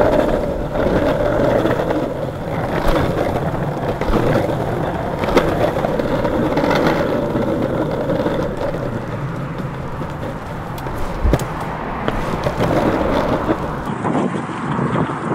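Longboard wheels rolling over rough asphalt: a continuous gritty rumble, with a sharp knock every second or so as the wheels hit bumps and cracks in the road surface.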